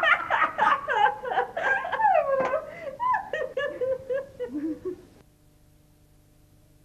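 People laughing and giggling, with quick pulsed bursts of voice. The sound cuts off suddenly about five seconds in, leaving only a faint steady hum.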